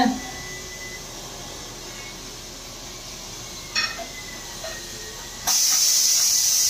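Faint background noise with a single click, then a loud steady high hiss that starts abruptly about five and a half seconds in and keeps going.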